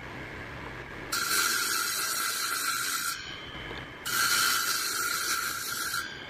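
Table-mounted circular saw cutting slots into the ends of square wooden legs: two cuts of about two seconds each, about a second in and again about four seconds in, with the saw running quieter between them.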